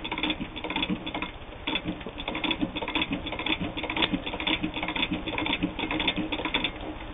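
Singer 15K all-metal sewing machine stitching through eight layers of heavy denim: a rapid run of mechanical clacks from the needle and feed, with a brief pause about a second and a half in.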